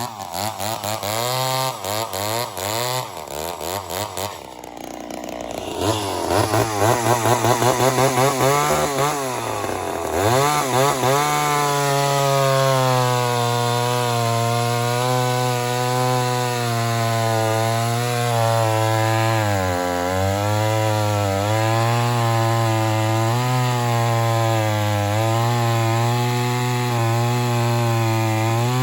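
Ported Poulan 245A chainsaw running at full throttle while cutting big hardwood. Its engine pitch swings up and down over the first ten seconds or so, then holds steady under load in the cut, dipping briefly about twenty seconds in.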